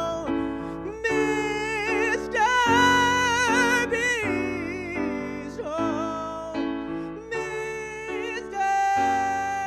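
Outro music: a melody with long held, wavering notes, as of a singer with vibrato, over steady sustained chords.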